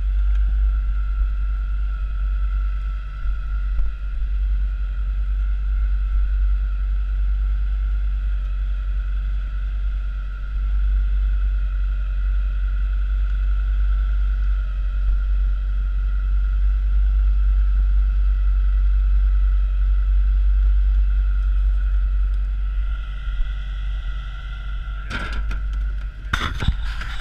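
Airboat engine and propeller running steadily: a deep rumble with a steady high whine over it. A few sharp knocks come near the end.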